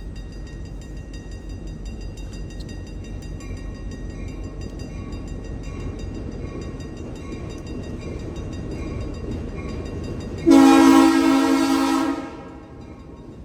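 A train rumbles along with a faint, regular clicking. About ten seconds in, the locomotive's horn sounds one loud chord-like blast lasting about a second and a half, then fades.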